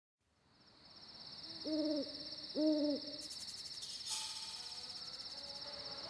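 Night ambience fading in: insects chirping in a steady fast pulse, with an owl hooting twice about a second apart.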